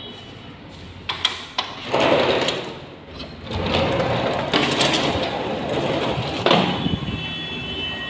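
Sliding window panes pushed along their tracks: a couple of clicks about a second in, then two long sliding runs.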